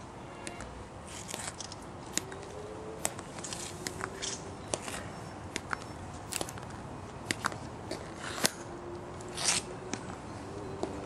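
A hushed crowd with scattered sharp clicks and taps at uneven spacing, among them the footsteps of a Tomb Guard sentinel's metal-plated heels on the stone pavement. A short scuff a little after nine seconds in is one of the loudest sounds.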